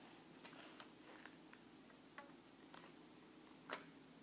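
Near silence with faint scattered ticks of a cardboard and rubber-band contraption being handled, and one sharper click about three and a half seconds in.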